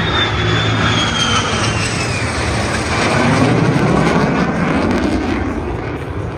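Fighter jet engines roaring overhead on a formation flypast. A high whine falls in pitch over the first two seconds, then the roar swells about three seconds in as one jet pulls away.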